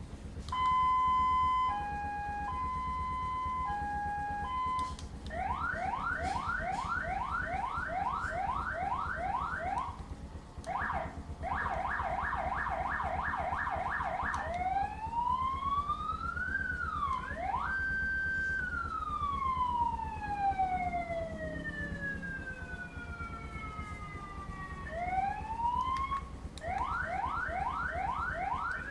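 Six-tone motorcycle siren cycling through its tones: alternating two-pitch beeps, then rapid rising yelps, a fast warble, and a long wail that rises and then slowly falls, with the yelps returning near the end.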